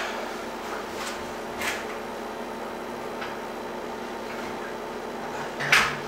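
Heavy refractory-lined steel lid set down onto a homemade steel-barrel foundry furnace, landing with one louder knock and a brief low ring near the end, after a few lighter knocks of handling.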